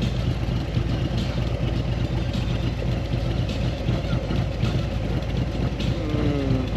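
Motorcycle engine running steadily at low revs in a low, even drone. A brief falling vocal sound comes near the end.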